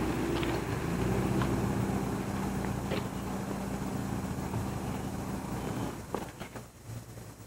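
A car's engine running steadily as the car pulls in, its note dropping about a second in, then shut off about six seconds in. A few light clicks sound over it.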